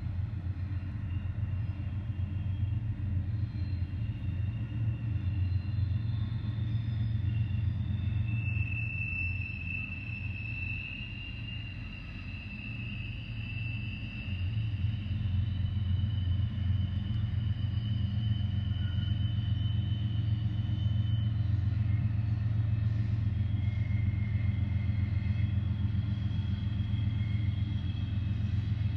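Freight train rumbling past: a steady low rumble that eases off about ten seconds in and builds again, with thin high-pitched squeals drawn out over several seconds from the wheels.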